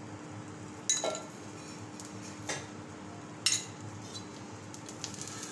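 Metal spoon clinking and scraping against a tawa pan as oil is spread over a paratha, three short knocks over a steady low hum.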